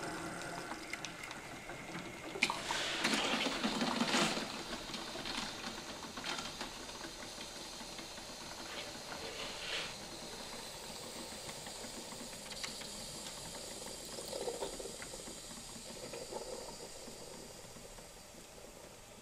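Bosch Tassimo pod coffee machine brewing: its pump running and hot water hissing and spluttering through the pod, louder for a couple of seconds about three seconds in, then a steadier hiss that fades away near the end.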